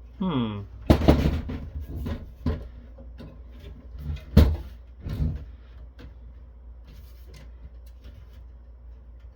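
The metal chassis and main board of a Cisco Catalyst 3650 switch being forced by hand: a short squeal falling in pitch near the start, then a run of clanks and knocks, the loudest about four and a half seconds in. The board is binding as it is pushed forward in the chassis.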